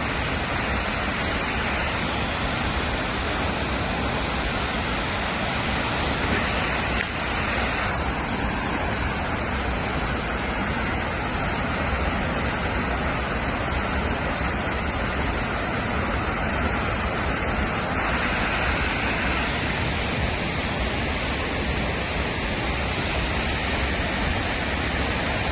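Steady rushing noise of Multnomah Falls, the water falling and splashing without a break.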